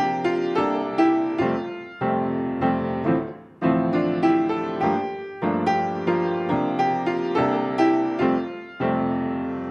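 Solo grand piano playing a slow, gentle piece: chords struck about twice a second, each ringing and fading before the next, with a brief break about three and a half seconds in.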